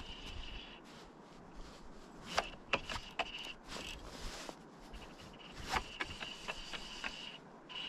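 Fly reel's click-and-pawl drag buzzing in stretches of about a second, high-pitched, as a hooked salmon pulls line and is played, with sharp clicks and knocks from the reel and rod handling in between.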